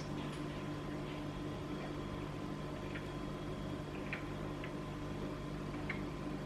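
A kitchen appliance running with a steady hum and a faint steady whine, with a few faint scattered ticks, while the Copha heats and melts.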